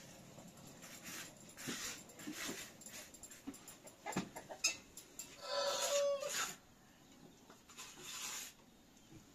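A wooden spoon knocking and scraping inside a cloth-covered cooking pot, with handling noise, and a short high whining squeal about halfway through.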